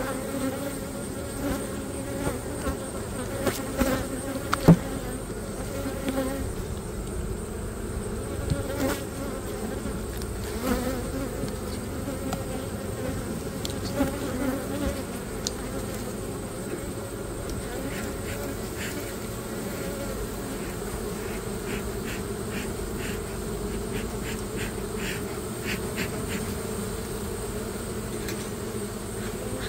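Honey bees buzzing in a steady drone over an open hive, with a few scattered light knocks and clicks, the loudest a few seconds in.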